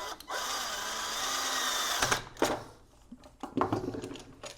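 WORKPRO 12-volt cordless drill driver running for a little under two seconds as it drives a screw in, then stopping; a few knocks follow.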